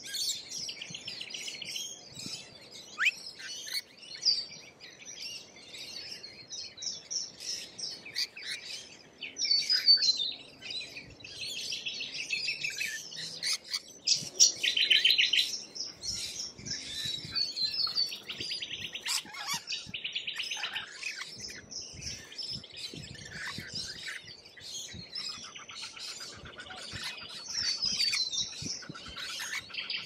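Rainbow lorikeets chattering at a feeder: many overlapping shrill, high calls and rapid buzzy trills, loudest about halfway through.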